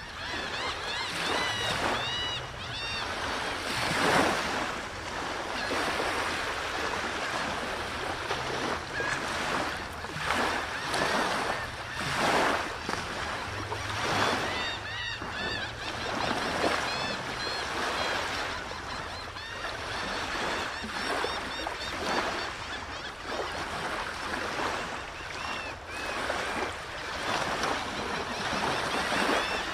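Rushing water, a steady wash that swells and eases every few seconds, with small birds chirping and singing over it in short, quick phrases.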